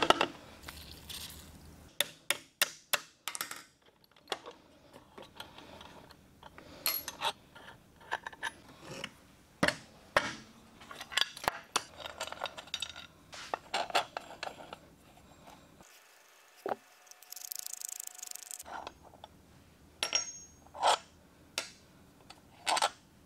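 Metal parts of a vintage chainsaw chain grinder clinking, knocking and scraping as they are taken apart by hand on a steel table, with irregular sharp clicks and taps. There is a short hiss about three quarters of the way through.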